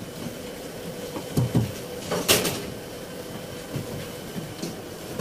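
Light handling noises of multimeter test leads and thermostat wiring: soft knocks, a short scrape about two seconds in and a few small clicks, over a faint steady hum.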